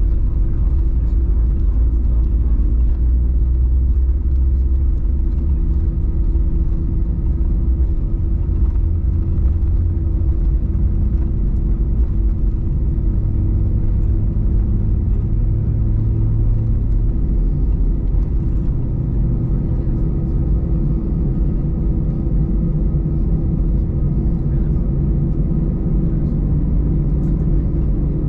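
Airbus A320 cabin noise while taxiing: the jet engines' steady hum at low taxi power over a continuous low rumble that shifts in pitch now and then.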